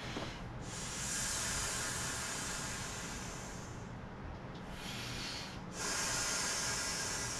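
A person blowing by mouth into the valve of an inflatable toy airplane: a long breathy rush of air from about half a second to four seconds in, a short blow after a brief pause, and another long blow from about six seconds in.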